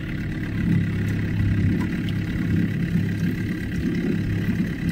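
Small boat's outboard motor running steadily at a slow trolling speed, a low even drone.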